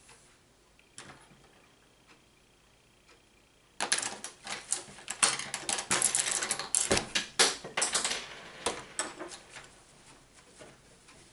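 Close handling noise: quiet at first, then about four seconds in a dense run of rustling and sharp clattering clicks for about five seconds, thinning to a few scattered clicks.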